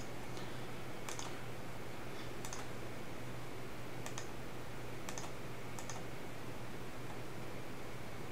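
Computer mouse clicking about five times, roughly a second apart, over a steady low hum.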